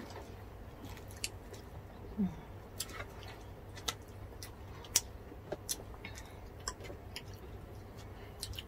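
Irregular sharp crackles and clicks as crispy deep-fried pork skin (bagnet) is broken apart by hand, with chewing between them. The loudest crack comes about five seconds in.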